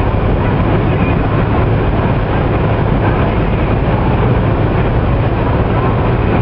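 Steady engine and tyre noise of a vehicle cruising on a sealed road, heard from inside its cabin as a constant low drone.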